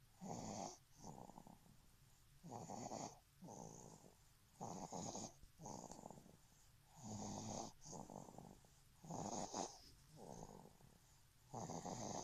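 A sleeping person snoring in a steady rhythm, about six breaths, roughly every two seconds. Each breath gives a louder, rasping snore followed by a shorter, softer one.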